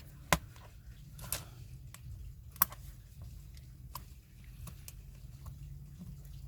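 Scattered sharp clicks and light taps of small craft tools and pieces being handled, the loudest about a third of a second in and about two and a half seconds in, over a steady low hum.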